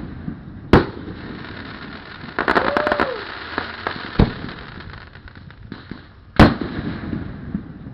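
Fireworks display: three loud booms of aerial shells bursting, spaced a few seconds apart, with a rapid run of crackling pops about two and a half seconds in.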